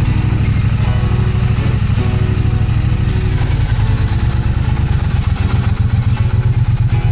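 Motorcycle engine running at low revs as the bike is ridden slowly, a steady low exhaust pulse.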